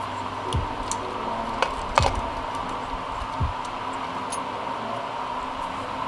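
A few light clicks and taps as a plastic throttle pulley is handled and pressed back onto an electronic throttle body, the sharpest about two seconds in, over a steady background hum.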